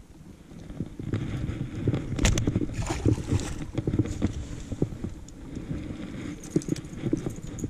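Irregular knocks and clatter aboard a fishing boat over a steady low rumble.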